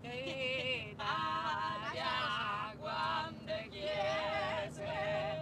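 Several voices singing together in close harmony, a cappella-style Italian folk polyphony. The phrases have held, wavering notes and short breaks between them.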